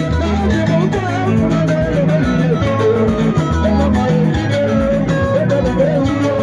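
Guitar-led dance music with a steady beat and a repeating bass line.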